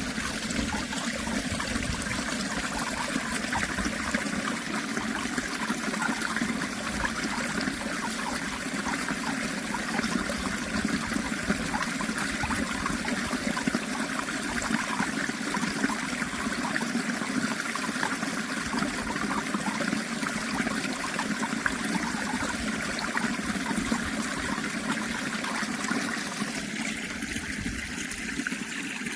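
Running water trickling and splashing steadily, like a small natural stream, with no pauses.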